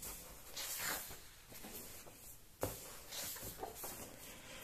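Pages of a large hardcover album being turned by hand: several soft paper swishes and rustles, with one sharp tap about two and a half seconds in.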